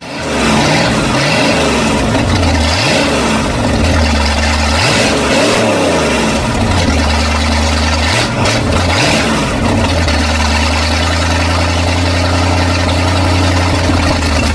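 Boat's inboard sterndrive engine running while being fogged with fogging oil, its speed rising and falling unevenly, then holding steadier over the last few seconds.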